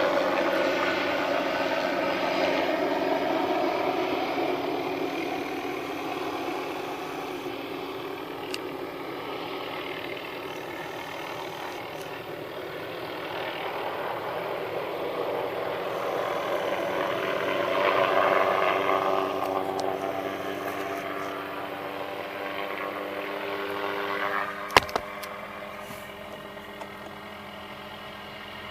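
An engine running steadily, fading and then swelling again before dropping off, with a sharp click about three-quarters of the way through.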